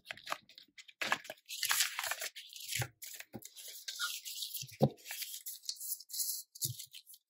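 Polymer banknotes and a clear plastic binder pocket rustling and crinkling as the notes are slid in, pulled out and fanned by hand. A few soft knocks come through.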